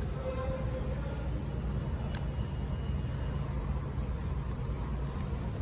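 Steady low mechanical hum, with two faint sharp clicks, one about two seconds in and one near the end.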